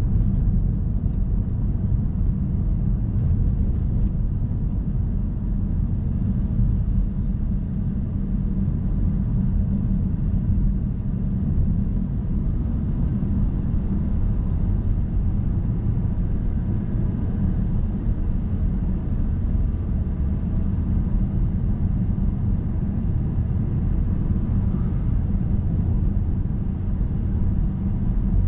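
A car driving along a road, heard as a steady low rumble of road and engine noise with no sudden changes.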